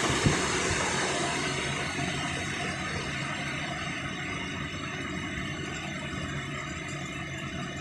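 Steady hum and hiss of factory ventilation and machinery, with one short knock just after the start; the level eases off slightly.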